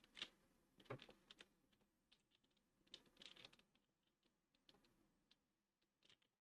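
Faint computer keyboard typing: irregular, quick key taps in small clusters.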